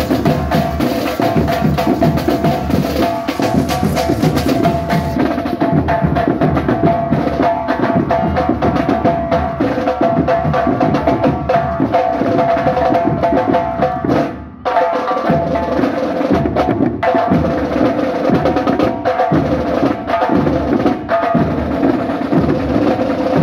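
Marching band drumline playing a fast, dense rhythm on snare drums, over steady held tones. The drumming breaks off for a moment about halfway through, then picks up again.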